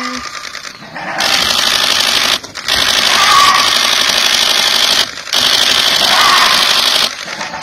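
Loud, high-pitched insect buzzing in long stretches, starting about a second in, breaking off briefly twice and stopping shortly before the end.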